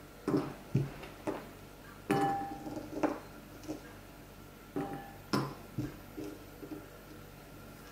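Gummy bears dropped by hand into white ceramic bowls and picked off the tabletop: irregular light taps and clinks, two of them with a short ringing note from the bowl.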